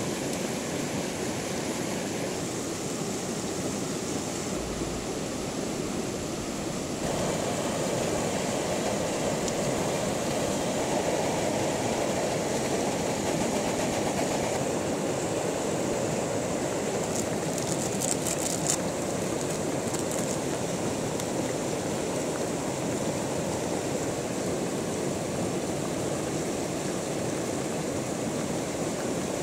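Rushing mountain stream: a steady roar of fast water over rocks, stepping up in level about a quarter of the way in. A few faint clicks come a little past the middle.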